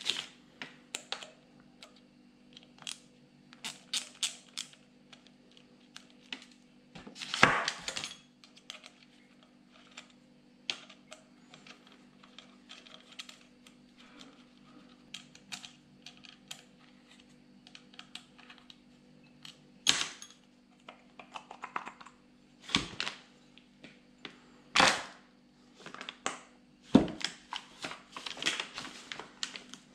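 Scattered metal clicks, taps and a few louder knocks from hand tools and parts while a car starter motor's rear end cap is unbolted and lifted off its brush holder, over a steady low hum.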